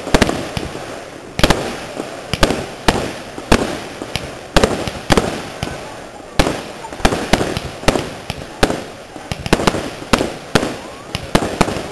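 Fireworks display: sharp bangs come in a quick, irregular run, sometimes several a second, with a crackling hiss from the rising spark trails between them.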